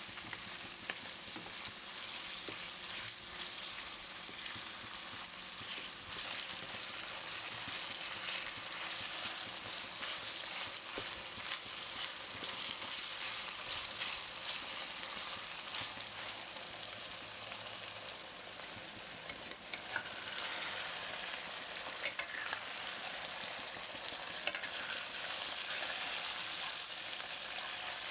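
Food frying and sizzling in a hot pan, a steady crackling hiss dotted with sharp pops, stirred now and then.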